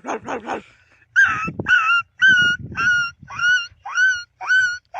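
A boy imitating a dog with his voice: a run of high-pitched yelps, about two a second, starting about a second in.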